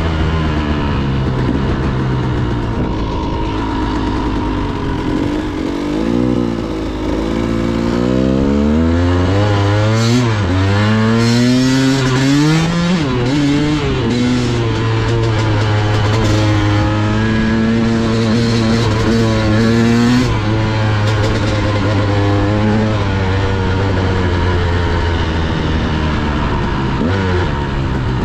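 Dirt bike engine heard from the rider's handlebar camera, its pitch rising and falling several times as it accelerates, then running at a steady pitch and dropping as the bike slows near the end. Short bursts of noise come through in the middle.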